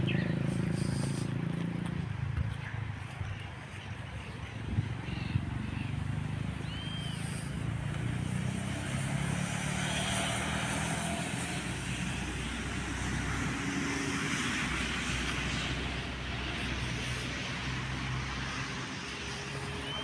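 City bus engine running steadily in the distance, with a hiss that swells and fades twice. A few short bird chirps sound over it.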